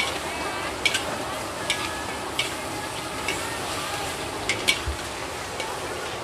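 A long metal spatula scraping and clanking against a large metal wok every second or so, as a big batch of shredded cabbage, carrot and minced pork is stir-fried over a steady sizzle.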